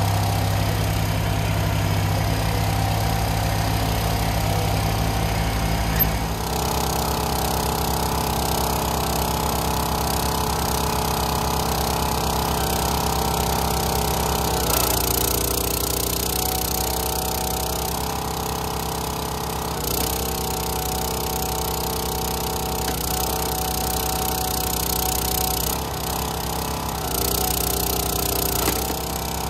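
Kubota BX23s compact tractor's diesel engine running low and steady, then from about six seconds in the gas engine of a 25-ton log splitter running steadily, its tone shifting several times as it takes load.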